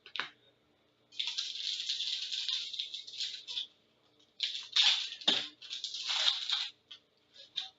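Crinkling and rustling of a foil trading-card pack wrapper and handling of the cards, in two long crackly stretches with a few short clicks.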